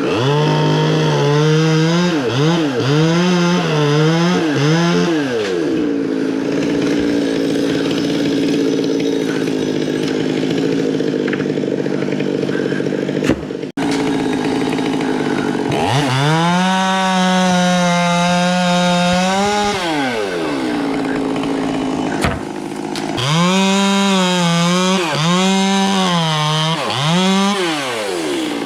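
Petrol chainsaw being throttled: quick revs up and down in bursts, a stretch of steadier, lower running, then held at high revs for about four seconds before more quick revving near the end.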